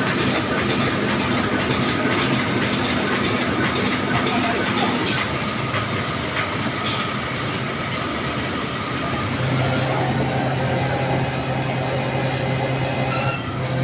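Steady mechanical rumble of heavy machinery running, with a low hum that comes in about two-thirds of the way through.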